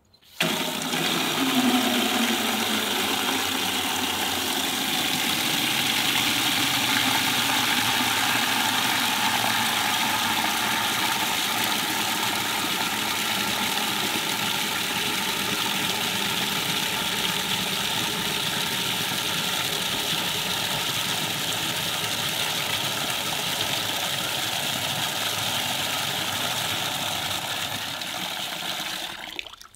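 Tap water gushing at full flow into a plastic bucket. It starts suddenly, runs steadily as the bucket fills at about 15 litres in 30 seconds, and stops near the end.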